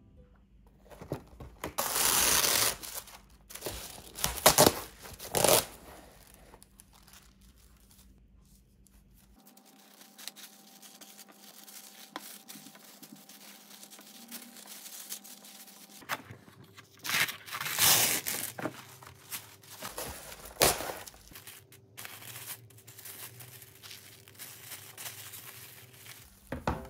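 Plastic wrap rustling, crinkling and being torn as it is folded around a sandwich: several loud bursts about two to six seconds in and again around seventeen to twenty-one seconds in, with quieter handling between.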